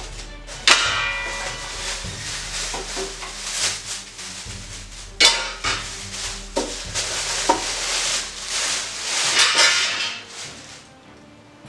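Handling noise from unboxing an ultrasonic cleaner: packaging rustling and crinkling, with a few sharp clacks and knocks of hard parts being handled. The noise dies away near the end.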